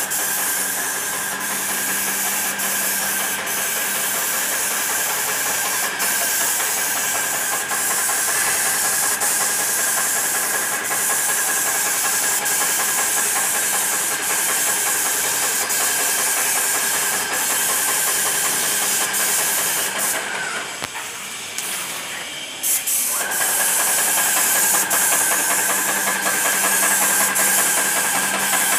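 Paint sprayer running: a steady motor hum under the hiss of paint spraying from the gun. About twenty seconds in, the hum and hiss drop away for a couple of seconds, then start again.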